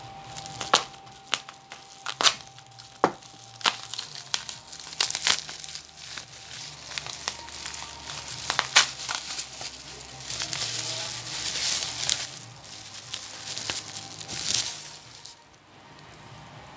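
Plastic bubble wrap crinkling and rustling as it is handled and unwrapped, with irregular sharp crackles; it dies down shortly before the end.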